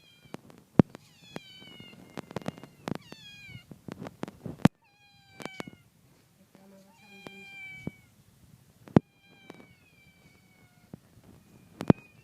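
Several kittens mewing over and over in short, high-pitched, falling calls, which are their way of asking for food. Sharp clicks and knocks sound now and then between the calls and are the loudest sounds.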